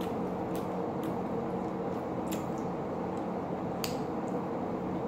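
Mouth sounds of someone eating milkfish and rice by hand: a handful of short wet clicks and smacks while chewing, over a steady low hum.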